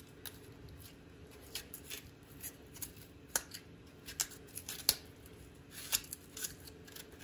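Spoon scraping and scooping out the flesh of a black radish, faint irregular short scrapes and clicks.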